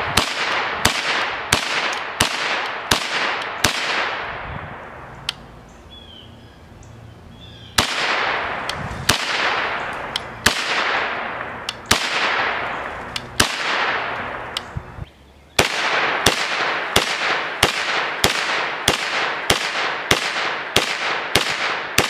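Henry Homesteader 9mm blowback semi-automatic carbine firing strings of shots, each sharp report followed by a long echoing tail. A quick string at about two shots a second is followed by a pause of a few seconds, then a slower run of about one shot every second and a half, then another quick string at about two a second.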